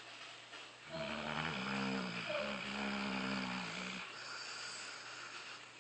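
Dog snoring: one long, pitched snore starting about a second in and lasting about three seconds.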